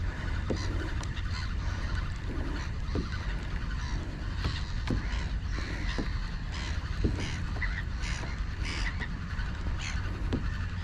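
A flock of seabirds calling repeatedly with short, harsh cries while feeding over a shoal of fish breaking the surface, over a steady low rumble of wind and water.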